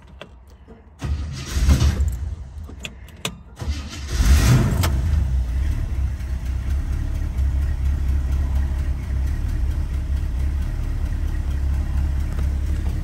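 1970 Chevrolet K/5 Blazer's carbureted engine on a cold start: the starter cranks for about two and a half seconds, the engine catches about four seconds in with a brief rev, then settles into a steady idle.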